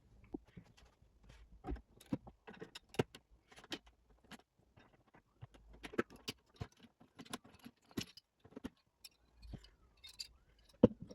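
Irregular metallic clicks, clinks and light knocks of computer hardware being handled, with a sharper knock near the end.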